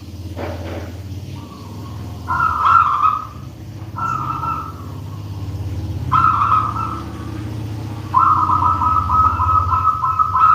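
Zebra dove (perkutut) singing: four staccato, trilling coo phrases, the last and longest starting about two-thirds in. A steady low hum runs beneath them.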